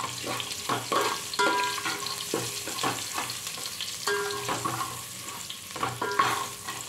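Garlic, curry leaves and green chillies sizzling in hot oil in an aluminium pot. A metal ladle stirs them, scraping and clinking against the pot in repeated strokes.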